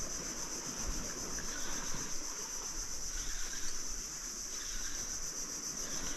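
Steady, high-pitched chorus of insects with a fine pulsing shimmer, with faint, irregular rustling and rubbing underneath.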